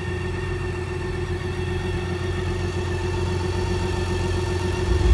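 BMW K 1600 GT SE's inline six-cylinder engine idling steadily.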